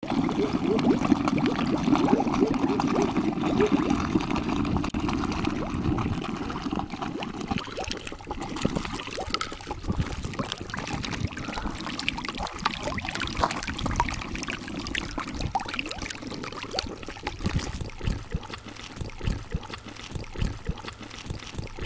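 Water trickling and gurgling in an open septic pipe, strongest through the first several seconds and fainter afterwards.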